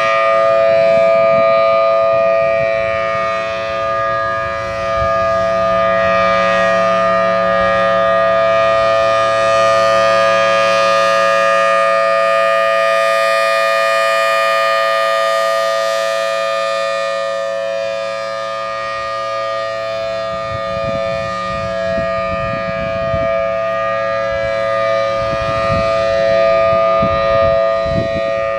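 Federal Signal Thunderbolt outdoor warning siren sounding a steady tone at full speed, several notes held together as a chord with no rise or fall in pitch.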